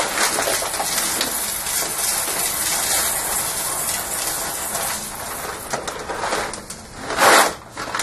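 Roasted coffee beans pouring from a bag into a coffee machine's metal bean hopper: a steady rattling rush of beans that thins out after about five seconds, with a short louder noise near the end.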